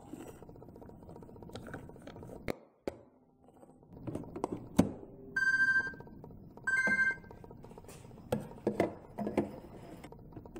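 Plastic clicks and knocks as a K-cup pod holder is handled and latched into a refrigerator's built-in Keurig brewer, then two short electronic beeps about a second apart from the fridge's control panel as buttons are pressed, followed by a few more light clicks.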